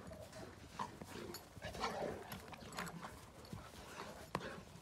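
Two Presa Canario dogs play-wrestling: scuffling, with short dog noises at irregular moments and a sharp click about four seconds in.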